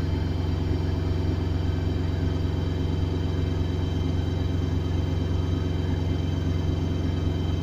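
Samsung WF80 front-loading washing machine spinning at maximum speed in service mode with a very unbalanced load: a steady, loud low drum rumble with a thin steady whine above it.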